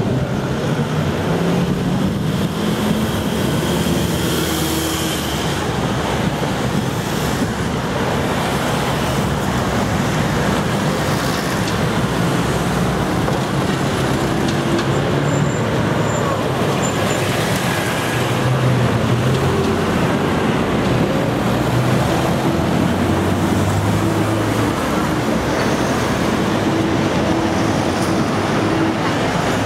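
Steady city road traffic: the engines of passing cars and taxis running, one after another.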